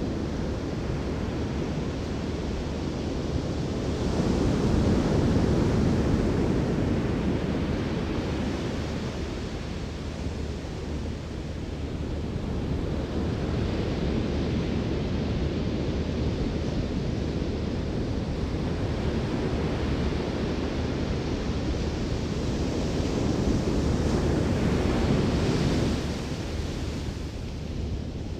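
Ocean surf breaking and washing up the beach in a continuous rush, swelling louder about four seconds in and again near the end, with wind buffeting the microphone.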